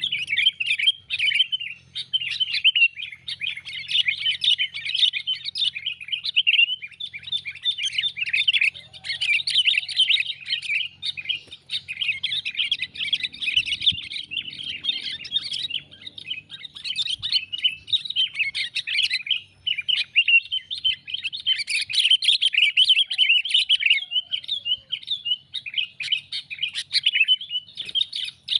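Sooty-headed bulbuls calling in a dense, near-continuous stream of chattering notes with barely a pause. This is a bulbul lure call, played to draw wild bulbuls in for trapping.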